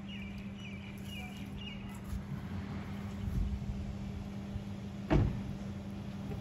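A car door shutting with a single loud thud about five seconds in, over a steady low hum, with birds chirping in the first second or two.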